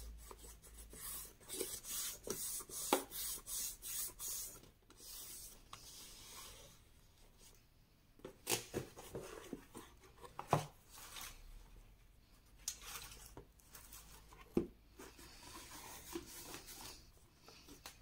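Hand rubbing firmly back and forth over the glued edge of a kraft cardstock box to press the paper down, about two strokes a second, for the first few seconds. Then quieter handling of the cardboard box, with a few light knocks as it is moved and set down.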